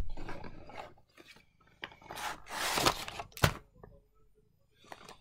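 Foil cat-treat pouches crinkling and rustling as they are handled and set down on carpet, in several irregular bursts with a sharp tap about three and a half seconds in.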